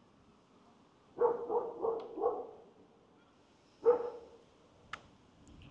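A dog barking: four quick barks, then a single louder bark about a second and a half later.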